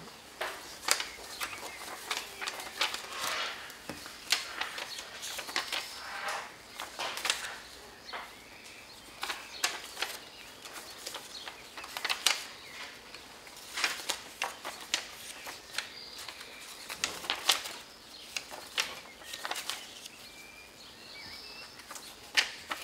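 Paper rustling and crackling, with scattered sharp clicks at an irregular pace: paper ballots being handled during a vote count.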